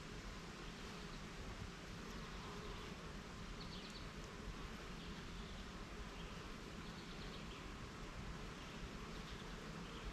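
Honeybees buzzing around their hive: a faint, steady hum.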